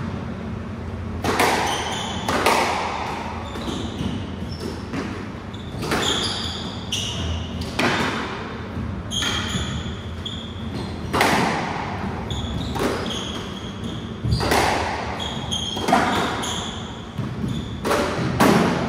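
A squash rally: the ball smacks off rackets and the walls every second or two, each hit echoing around the enclosed court. Short shoe squeaks on the wooden floor come between shots.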